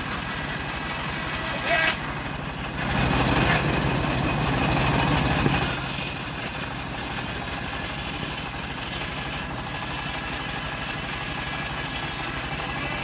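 Stihl MS 381 two-stroke chainsaw running steadily, dipping briefly about two seconds in and then coming back stronger.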